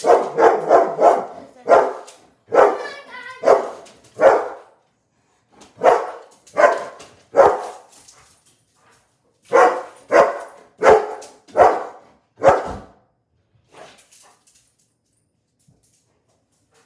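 A dog barking repeatedly in short runs of several barks, stopping about thirteen seconds in.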